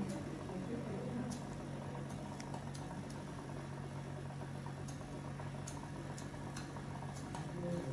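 Steady low hum with faint, scattered small clicks, about a dozen irregular ticks.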